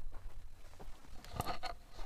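Footsteps: a few irregular crunching steps, the loudest cluster of them just past halfway.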